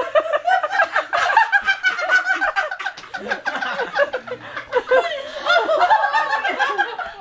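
A woman's helpless fit of high-pitched laughter, in many short snickers and squeals, that keeps her from reading aloud.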